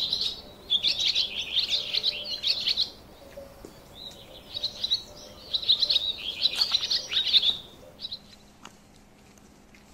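A small songbird singing: two long runs of quick, high twittering, each a few seconds long, then a short single note.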